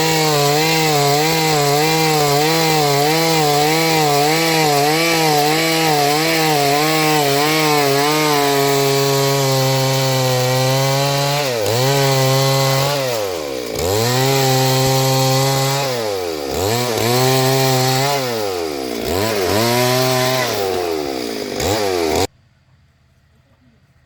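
Chainsaw cutting into a Gamhar tree, its engine note wavering under load, then bogging down and picking up again several times as it cuts. Near the end the sound stops abruptly.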